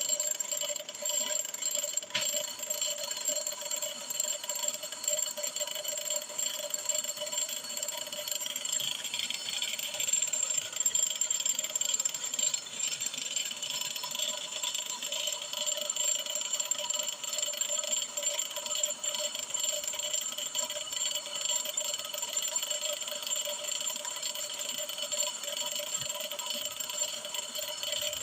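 Brake lathe spinning a brake drum while the cutting tool skims its braking surface: a steady machine whine with several high ringing tones. A scraping hiss swells from about eight seconds in and eases off around sixteen seconds.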